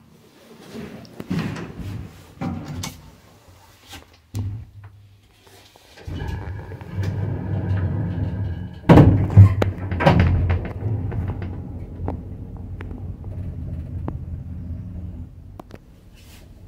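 A few knocks and clicks, then a 1990 ZREMB lift's sliding doors closing with a steady hum and two loud clunks about nine and ten seconds in, followed by the lift's drive humming as the car travels down.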